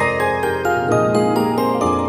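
Train onboard announcement chime: a bright, bell-like electronic melody of struck notes, about four a second, each note ringing on under the next.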